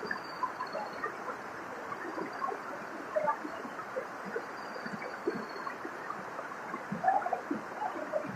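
Waterfall water splashing and gurgling steadily over rocks, full of small irregular splashes. A faint, thin, high bird whistle comes twice, near the start and about halfway.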